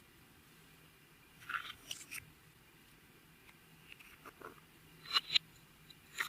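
Clear glitter slime being squished and stretched by hand, making a few short bursts of sticky clicks and crackles.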